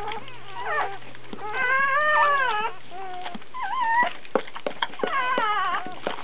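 Newborn Doberman puppy crying in high-pitched squeals: several short cries and one longer one about two seconds in that rises and falls. Short wet clicks from the mother licking it sound between the cries.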